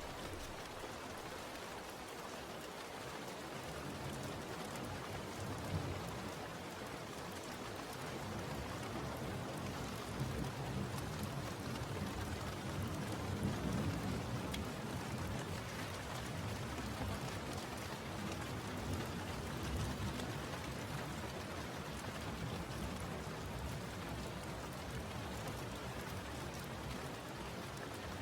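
Steady rain falling, with a low rumble of distant thunder that swells in the middle and fades away.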